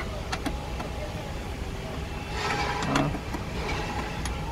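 Ratchet wrench loosening a 10 mm bolt on a car's bumper bracket: a few scattered sharp metal clicks and a short rattle about halfway through, over a low steady rumble.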